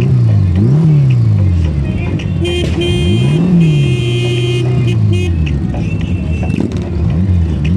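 Motorcycle engines revved in short blips, their pitch rising and falling several times over a steady running note. From about two and a half seconds in, a steady high tone is held for nearly three seconds.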